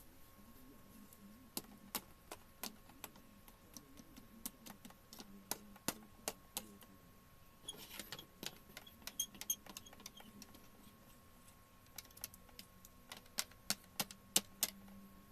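Faint, irregular light clicks and taps of small objects being handled, with a brief metallic jingle about eight seconds in, over a faint steady hum.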